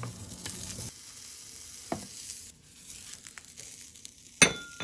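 Sausages sizzling in garlic spread in a tamagoyaki pan, the sizzle dying down about halfway through. A few light knocks follow, then near the end a sharp metallic clink that rings briefly.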